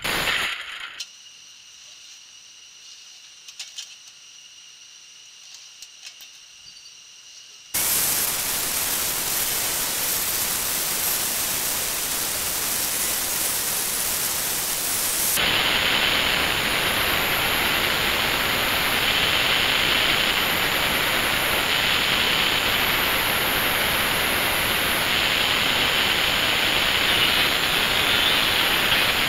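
A short metallic clatter of a band saw blade on an anvil, then after about eight seconds an angle grinder's cut-off wheel starts cutting through old hardened steel files: a loud, steady grinding hiss whose tone shifts about halfway through.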